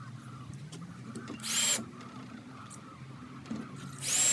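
Cordless drill driver run in two short trigger bursts, about a second and a half in and again near the end, its motor whining up to speed each time: driving screws to fix a timber insert into a practice door.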